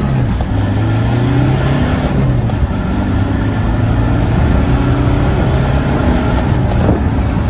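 Land Rover Defender 90 Puma TDCi diesel engine pulling hard at full throttle through the gears on a 0–60 mph run, heard from inside the cab. Its pitch climbs in each gear and drops at each gear change, several times.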